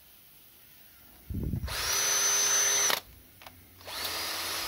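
Kress cordless drill, running on an 18 V Makita battery with its replacement chuck, spun up twice as a test. After a low thump, it runs at full speed with a steady whine for about a second and a half. It stops, then starts again more quietly at a lower speed.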